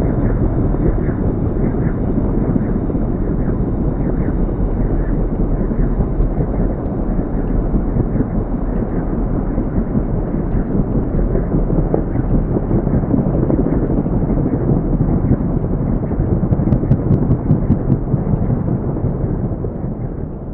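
AH-64 Apache attack helicopter running at full power close by as it lifts off the runway into a low hover: a loud, dense rotor and twin-turboshaft roar with a rapid chop from the blades. The sound fades out near the end.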